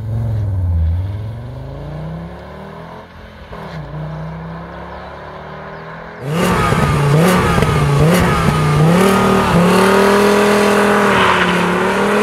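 Volkswagen Golf R32's VR6 engine accelerating away, its revs climbing, dropping once at a gear change and climbing again as it fades. About six seconds in, a louder, closer car engine revs hard, its pitch repeatedly rising and falling quickly through gear changes, then pulling more steadily.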